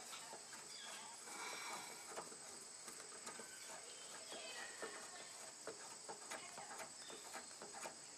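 Faint scattered clicks and light metal handling noises as a spool valve control handle is unscrewed and taken off, over a steady high-pitched hiss.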